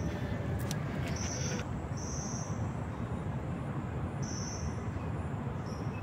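Insects calling in short high buzzes, four of about half a second each, over a steady low rumble.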